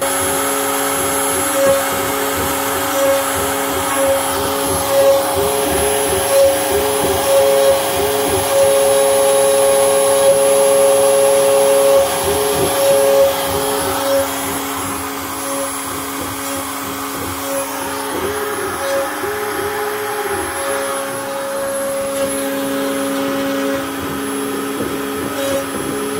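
A DIY CNC router cutting into a wooden board. Its spindle motor runs steadily with a thin high whine, while lower motor tones rise and fall in pitch as the axes change speed and direction. It is a little louder in the first half.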